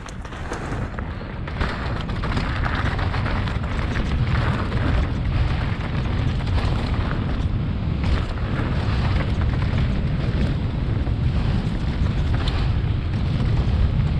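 Wind buffeting the microphone of a helmet-mounted GoPro as a mountain bike rolls down a loose dirt trail, with a steady low rumble of tyres over the ground. It builds over the first couple of seconds as the bike gathers speed, with a sharp clack from the bike now and then.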